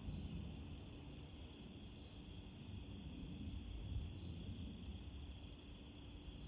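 Wind gusting against the microphone as an uneven low rumble, with a faint, steady chirring of night insects.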